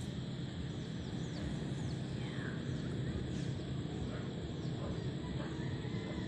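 Steady low outdoor rumble, with a few faint, short, falling bird chirps over it.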